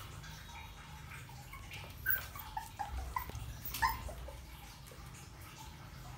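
A puppy giving several short, high squeaky yelps, mostly between about two and four seconds in, over a low steady hum.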